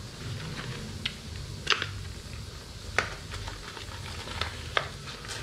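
A few light, sharp clicks and taps from handling things at a kitchen counter, four distinct ones about a second apart, over a low steady hum.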